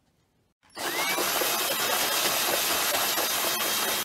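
Power drill with a hole saw cutting through the lid of a plastic storage container, a steady grinding run that starts about a second in and cuts off suddenly at the end.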